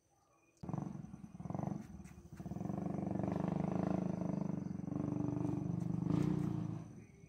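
Cat making a low, rough, pulsing sound that starts suddenly just under a second in, grows steadier and louder from about two and a half seconds, and drops away near the end.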